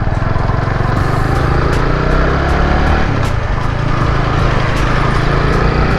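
TVS Apache RTR 200's single-cylinder engine running steadily while the bike is ridden, a dense low rumble with wind rush over it.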